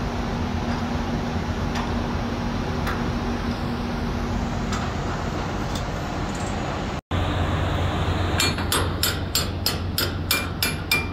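Steady low rumble of shipboard machinery on an open deck. After a cut about two-thirds in, rapid metallic knocks come at about four a second with a ringing note, like a hammer striking steel.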